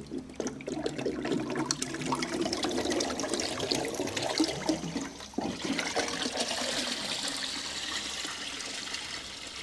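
Electrolyte water pouring and splashing off a motorcycle gas tank as it is lifted out of a washing-soda electrolysis bath, draining back into the tote. It starts suddenly, with some knocks early on, dips briefly about halfway through, then runs on as a steadier trickling wash.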